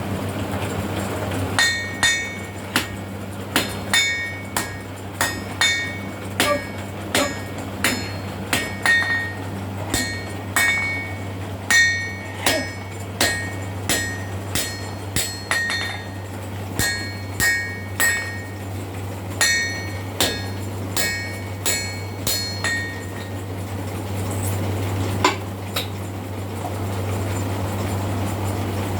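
Blacksmith's hammer blows on steel over an anvil while forging a nata blade, about one and a half strikes a second with a bright ringing after each, stopping near the end apart from one last strike. A steady low hum runs underneath.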